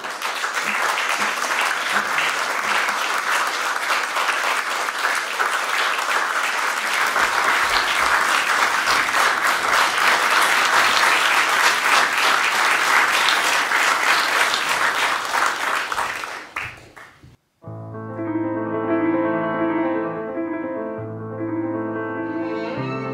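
Audience applauding for about seventeen seconds, cut off suddenly, then a Yamaha grand piano begins playing.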